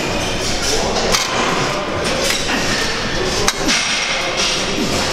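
Plate-loaded chest-supported row machine clanking with each rep, a sharp metal knock about every second, over steady gym background noise.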